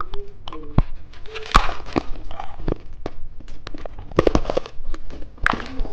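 Plastic candy packaging crinkling and crackling with many sharp, irregular clicks as it is handled.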